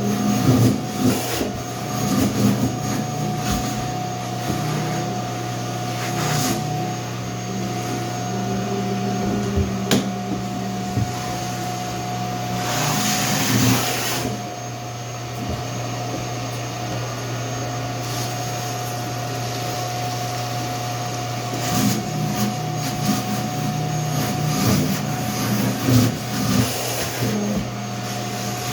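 Shop vacuum motor running steadily, with knocks and clatter of work on the wooden floor over it, a short louder hiss about halfway through and a busier stretch of knocking near the end.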